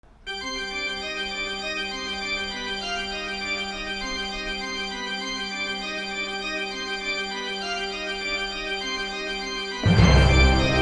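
Organ music playing slow, held chords. Just before the end it turns suddenly louder, with deep bass.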